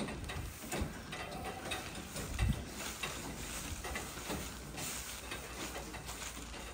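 Cattle barn ambience: Jersey heifers moving at metal feed barriers, with scattered metallic clanks and rattles and a low thump about two and a half seconds in.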